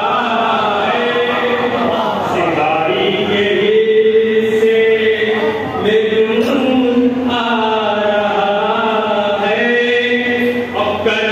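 Devotional chanting by voices without instruments, in long held, bending notes.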